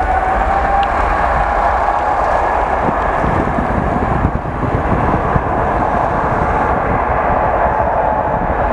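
Jet engines of a Singapore Airlines Boeing 777-300ER (GE90 turbofans) at takeoff thrust on the takeoff roll: a loud steady roar with a fan whine that climbs slightly about a second in and then holds.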